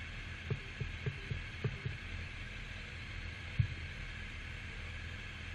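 Motorcycle engine idling steadily while stationary, heard through a camera microphone on the bike, with several soft thumps in the first two seconds and one sharper knock about three and a half seconds in.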